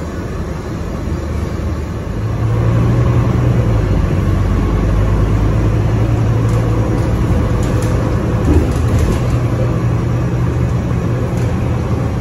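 Feeder bus heard from inside its cabin as it pulls away and drives on: a steady low rumble of the drivetrain and road that swells about two seconds in, with a single knock past the middle.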